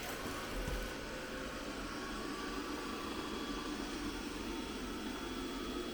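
Robot vacuum cleaner running with a steady hum and a faint high whine.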